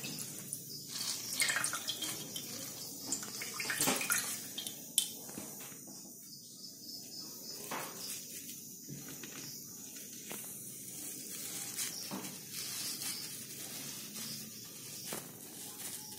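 Water splashing and dripping as slices of white bread are dipped in a bowl of water and squeezed out by hand, with a few light knocks of dishes.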